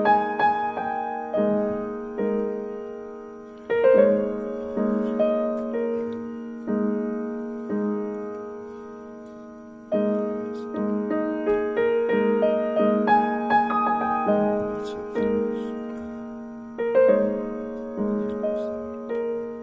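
Background music: a gentle piano piece, chords and melody notes struck and left to fade.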